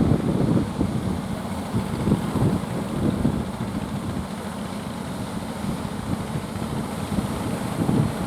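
Wind buffeting the microphone in rough, uneven gusts, over the running of a boat's engine.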